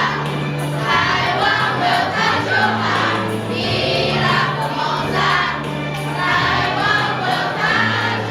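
Children's choir singing an English song in unison, over a steady instrumental accompaniment with held bass notes.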